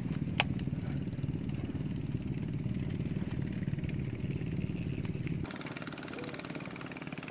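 Small boat's engine running steadily with an even low beat, a single sharp click about half a second in. It drops to a fainter level about five and a half seconds in.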